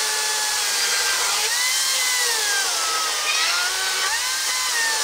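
Makita DUC353 36 V cordless chainsaw with a brushless motor, running at full speed while cutting through a 100×100 mm squared timber beam. It makes a high, steady motor and chain whine whose pitch sags in the middle and climbs again about four seconds in.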